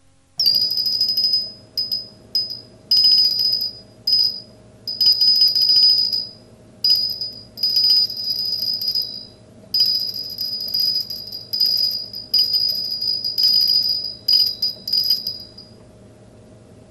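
A high, steady ringing tone sounding in broken stretches of half a second to a couple of seconds each, stopping near the end, over a faint steady hum.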